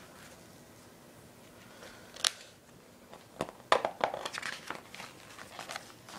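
Glossy program pages being turned by hand: a sharp paper snap about two seconds in, then a cluster of rustling and crackling as a page is flipped over.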